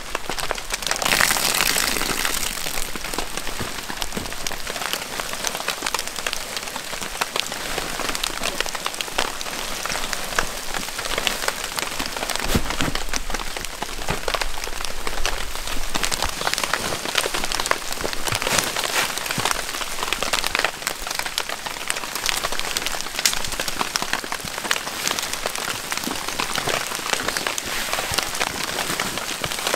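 Heavy rain falling steadily, with dense individual drop impacts close to the microphone, and a brief louder surge of hiss about a second in.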